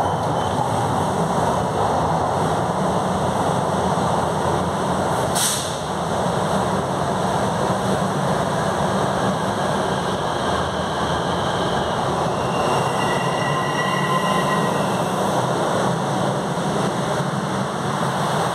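ViaMobilidade Line 5 Fleet F metro train rolling slowly along the platform to align and stop, a steady running rumble with no brake squeal. A short hiss about five and a half seconds in, and a faint high whine from about twelve to fifteen seconds in.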